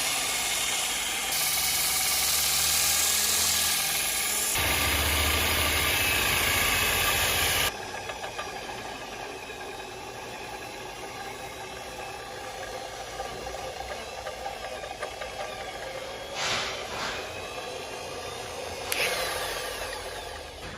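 Water-jet lathe at work: a high-pressure water jet hisses loudly as it trims a wooden bat blank spun by a drill, with abrupt jumps in the sound for the first several seconds. After about eight seconds it drops to a quieter mechanical running with steady whining tones.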